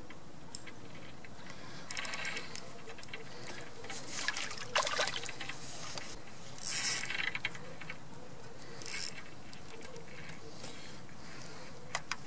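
Fishing tackle being handled while a small chub is brought in: a run of quick reel clicks about two seconds in, then a few brief splashy noises, over a steady faint hiss.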